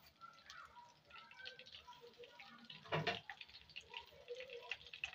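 Breaded chicken pieces shallow-frying in oil on a low flame, the oil crackling with many small pops. A single louder knock comes about three seconds in.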